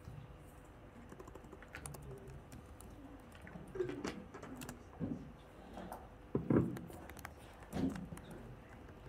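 Scattered keystrokes and clicks on a laptop keyboard, with two or three louder knocks in the second half. A faint steady hum runs underneath.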